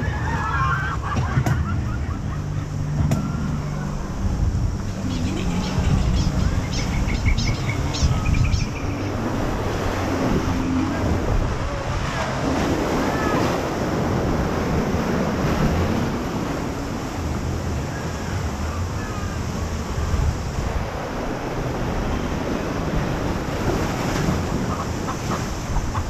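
Churning white water of a river rapids ride rushing past and splashing against the round raft, with a steady low rumble underneath.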